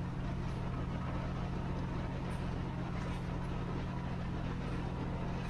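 Engine of a wooden outrigger boat running steadily under way, a constant low drone that holds the same pitch and level throughout.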